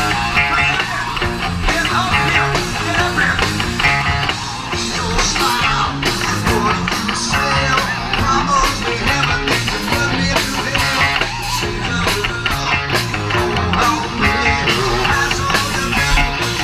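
Live rock band playing loudly: guitar over bass and drums.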